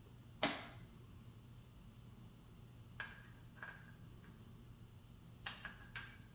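Metal gun parts and tools knocking and clinking during a shotgun teardown: one sharp knock about half a second in, then lighter clinks around three seconds in and a quick cluster of three near the end, several with a brief ringing. A low steady hum runs underneath.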